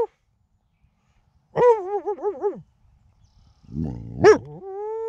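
Male coyote caught in a foothold trap vocalizing: a short wavering howl, then a sharp bark about four seconds in that runs straight into one long, steady howl.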